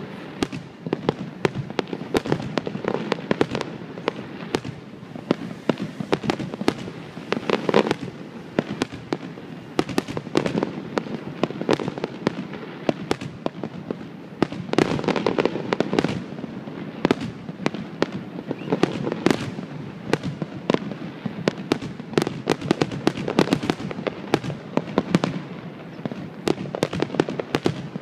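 Aerial fireworks display: a continuous rapid string of bangs and crackles from shells bursting overhead, with louder clusters of bursts every few seconds.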